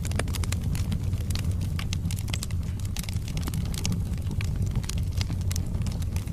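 Wood logs burning in a fireplace: irregular crackles and pops over a steady low rumble of the flames.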